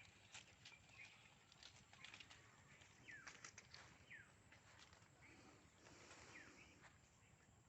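Faint bird calls: a few short, quickly falling chirps spaced a second or two apart, over scattered small clicks and taps.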